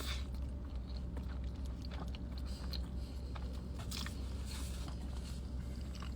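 Close-miked biting and chewing of an In-N-Out meal: scattered short crunches and wet mouth clicks, over a steady low hum.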